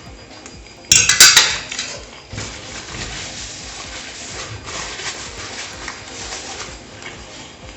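Cutlery clattering against a plate, with a loud burst of clinks about a second in, then quieter scraping and rustling.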